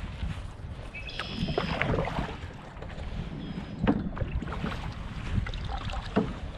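Canoe paddle strokes splashing in choppy lake water, with wind rumbling on the microphone throughout. Several short sharp splashes stand out, the strongest about four seconds in and again near the end.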